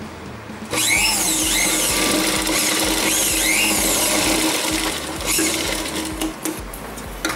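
Electric sewing machine running, stitching fabric. It starts about a second in, runs fairly steadily and stops near the end, followed by a few sharp clicks.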